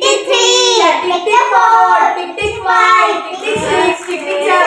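A child's voice singing continuously, with two short low thumps in the middle.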